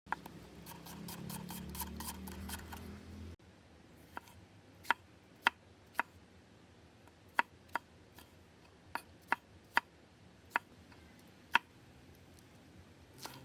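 A busy clatter for the first three seconds, cut off abruptly, then sharp separate knocks at irregular intervals, about one a second, with a faint background between them.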